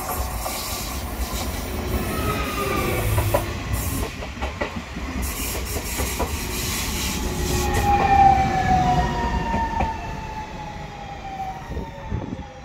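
BM 72 electric multiple unit passing close and slowing as it comes into the station: a steady rumble of wheels on rail with scattered knocks, and an electric whine that falls steadily in pitch as the train decelerates, loudest about eight seconds in.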